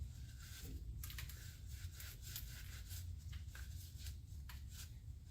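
Faint, scattered scratching and clicking handling noises over a steady low hum.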